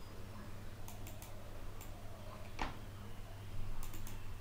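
A handful of light, irregularly spaced computer mouse clicks, with a steady low hum underneath.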